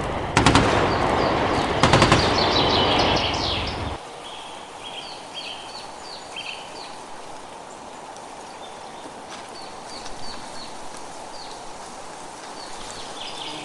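Two short bursts of gunshots about a second and a half apart, with a noisy tail that cuts off about four seconds in. After that, birds chirp in short repeated calls over a faint outdoor background.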